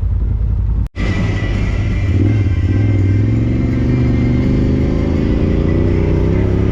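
Side-by-side UTV engine running while riding, its pitch rising and falling with the throttle. The sound breaks off for an instant about a second in, then carries on.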